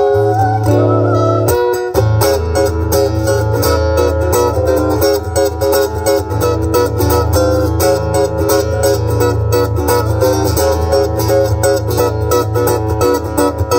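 Amplified acoustic guitar strummed steadily in a live instrumental passage. A sung line ends about a second in, and from then on the guitar plays alone.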